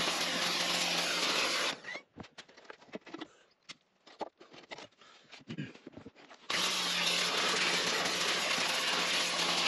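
Stanley SXPW22E electric pressure washer running, its jet spraying a lawn mower deck: a steady hiss over a low hum. It stops about two seconds in, leaving a few scattered clicks and knocks, and starts again about six and a half seconds in.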